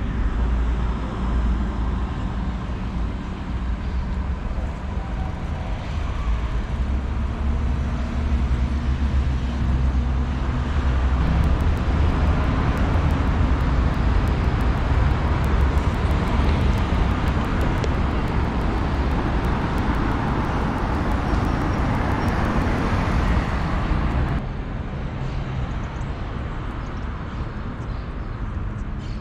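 Road traffic going by: a steady rumble of passing cars that swells toward the middle and drops abruptly to a quieter street background about 24 seconds in.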